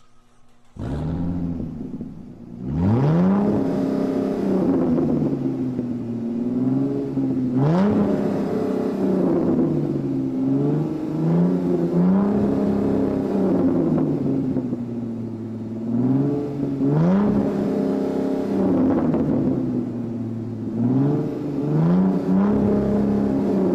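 Supercar engine coming in about a second in and settling to idle, then revved hard several times, the pitch climbing steeply and dropping back to idle after each blip.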